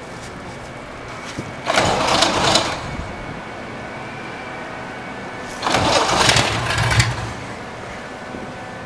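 ULPower UL520iS six-cylinder aircraft engine cranked twice on its starter, about a second each time, without catching. The balky start comes from cranking with the throttle closed.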